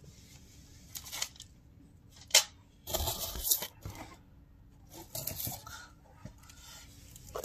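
Handling noises as parts and tools are worked: scattered clicks, one sharp click about two and a half seconds in, and short rustling scrapes around three seconds and again around five seconds in.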